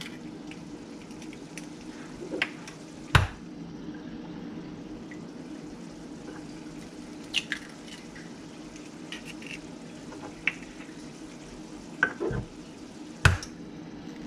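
Eggs cracked on the rim of a small bowl: two sharp cracks of eggshell, about three seconds in and near the end, with lighter taps and clicks of shell and bowl between. Underneath is a steady low hum and a faint sizzle from a pan frying on low heat.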